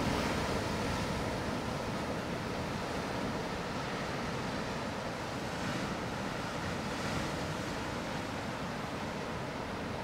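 Pacific Ocean surf breaking and washing against coastal rocks: a continuous rushing wash that swells slightly as waves come in.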